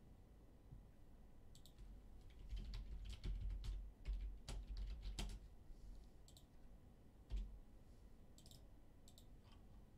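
Faint typing on a computer keyboard: a run of key clicks from about two seconds in to near the end, with a few dull low thuds among them.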